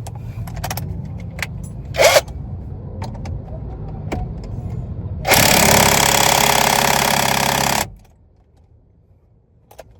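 A power tool runs in one loud burst of about two and a half seconds and cuts off suddenly, after a low steady hum with scattered clicks.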